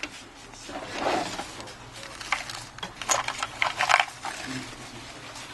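Light clicks and taps of small metal tools and parts handled on an opened iPhone 6, with a soft rustle about a second in and several sharp clicks between two and four seconds in.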